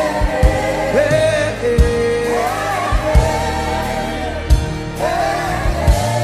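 Gospel worship song: voices singing long held notes that glide between pitches, over a band with low drum hits.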